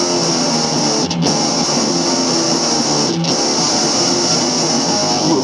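Electric guitar playing a loud rock riff in an instrumental passage with no vocals, with brief breaks about every two seconds.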